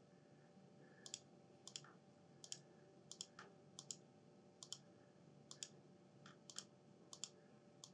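Computer mouse button clicking: a dozen or so faint single clicks at uneven intervals, roughly half a second apart, over near-silent room tone.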